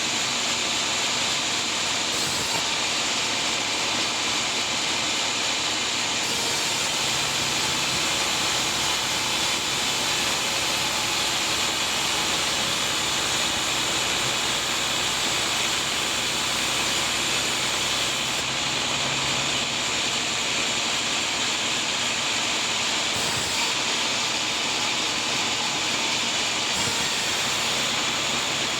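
Sawmill running steadily: a constant high-pitched hiss of the saw with a faint low hum underneath.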